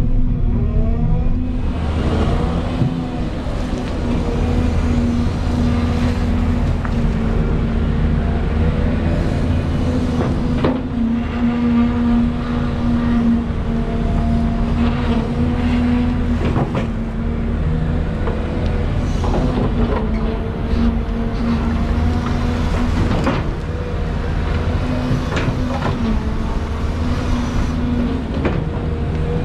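Volvo EC220 tracked excavator's diesel engine running steadily under load, with a higher tone that rises and falls as the boom and bucket move. Scattered knocks and scrapes come from the bucket working loose soil into the trench.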